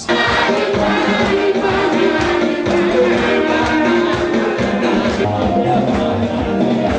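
Upbeat gospel church music with singing and a steady beat, cutting in suddenly at full level.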